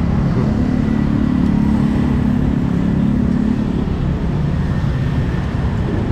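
Street traffic: car and motorbike engines running close by, with a low engine hum that fades out after about three and a half seconds.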